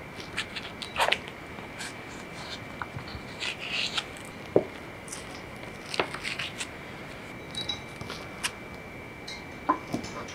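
Chef's knife pressing down through a sheet of soft potato dough and tapping on a wooden cutting board: scattered light taps and clicks at irregular moments. A faint steady high-pitched tone runs underneath.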